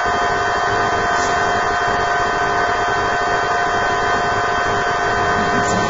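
A steady hum and hiss, with a few held tones.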